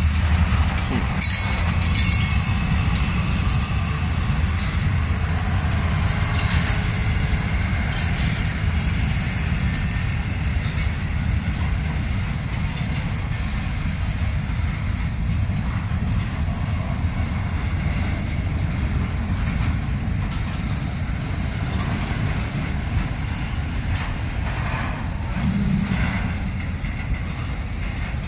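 Freight cars rolling slowly past on the rails in a steady low rumble, with a high squeal rising in pitch over a few seconds about two seconds in.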